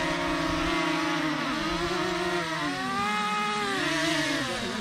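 DJI Mini 2 quadcopter's propellers whining as it comes down under automatic landing. Several tones waver up and down in pitch as the motors adjust speed during the descent.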